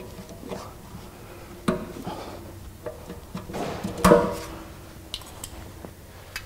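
Metal clinks and knocks as the inspection hatch covers on a truck's rear-axle brake drums are worked open to check the brake pads, with one louder ringing clank about four seconds in.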